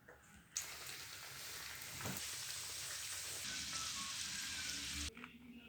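Samsa pastries frying in oil, a steady sizzle that starts suddenly about half a second in and cuts off abruptly near the end.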